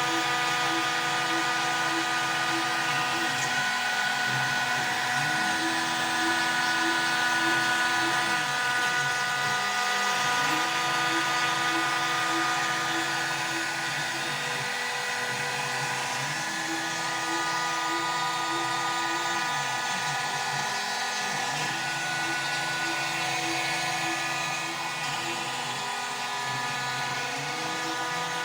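Homemade CNC router running: the spindle gives a steady high whine, while the stepper motors hum at pitches that hold, then slide up and down as the axes change moves, in a cycle repeating about every five to six seconds.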